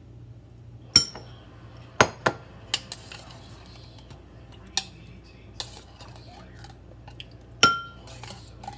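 Kitchen utensil clinking against dishes as fruit cocktail is shared out into three dessert dishes: a series of separate sharp clinks, several ringing briefly, the loudest near the end.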